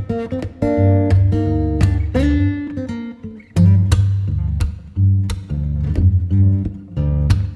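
Background music led by plucked acoustic guitar, with notes and chords changing every second or so over a steady low bass.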